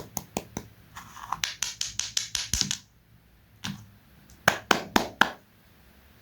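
Crisp KitKat chocolate wafer crunching in a series of sharp cracks: a few spaced crunches, a dense run of crunching, then after a short pause four louder crunches in quick succession.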